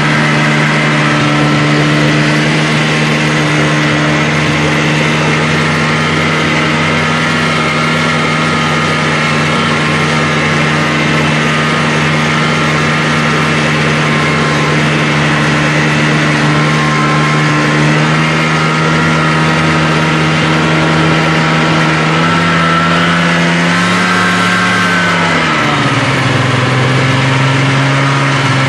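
Snowmobile engine running steadily while towing a sled with two riders, heard from the machine itself. About 22 seconds in its pitch rises a little, then it drops to a lower, slower note a few seconds later as the machine eases off.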